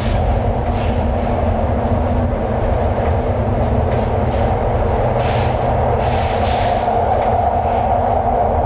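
Metro train running at speed through a tunnel, heard from inside the car: a steady rumble of wheels on the rails under a constant drone, with a few short rushes of hiss around the middle.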